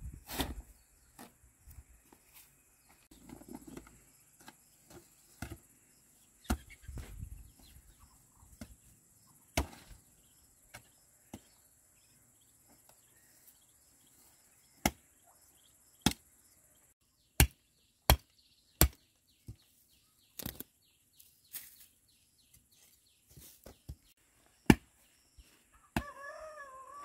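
Hoe blade chopping into dry, hard soil: a string of irregular, sharp strikes, the loudest ones bunched in the second half, with softer rustling earlier. Near the end a chicken calls once.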